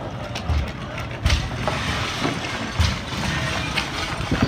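Wooden furniture and planks knocking and clattering as they are dragged, tossed and dropped onto the ground, with several sharp wooden knocks and a few dull thuds.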